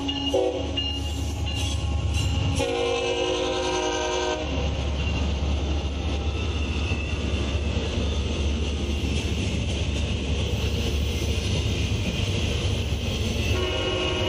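A freight train's locomotives and double-stack container cars roll past on the rails with a steady low rumble. A train horn sounds once, just under two seconds long, about three seconds in. A shorter tonal sound begins near the end.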